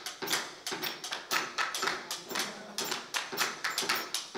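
Hand percussion struck in a steady rhythm, about three strokes a second.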